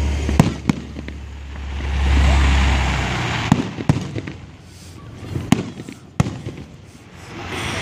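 Aerial fireworks shells bursting: about six sharp bangs spread over several seconds. A low steady rumble runs under them for the first three seconds.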